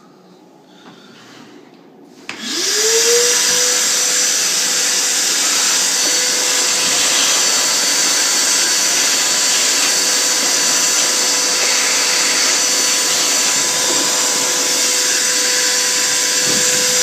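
Vacuum cleaner starting up about two seconds in, its motor whine rising quickly to a steady pitch over loud rushing air, then running steadily while it sucks wood chips off the freshly milled piece.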